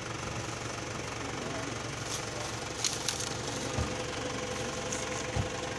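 A vehicle engine idling with a steady hum. A few sharp clicks sound around the middle, and two low thumps come later.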